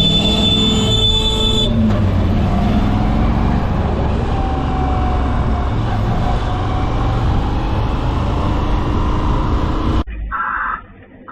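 A car horn held down, stopping about a second and a half in, over steady road and engine noise of traffic. Near the end the sound cuts abruptly to a much quieter stretch with short repeated tones.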